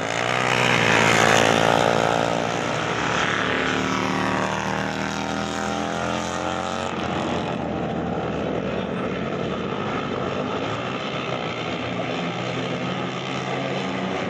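Racing motorcycle engines at full throttle. The loudest bike peaks about a second in, and its engine note then falls steadily over several seconds as it passes. Other engines keep running behind it.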